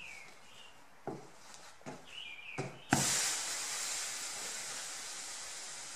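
Hot clothes iron pressed onto a wet cloth laid over dented wood: the water flashes to steam with a sudden loud hiss about three seconds in, fading slowly. The steam swells the crushed wood fibres to lift the dent. A few light knocks come before it.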